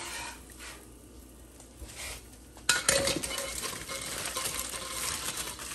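A metal spatula lifting a pupusa off a flat griddle. About two and a half seconds in, aluminium foil starts crinkling and rustling as it is handled to wrap the pupusas.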